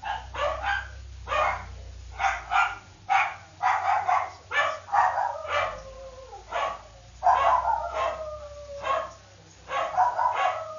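A dog yipping and whining over and over, about one short call a second, some of the calls sliding down in pitch.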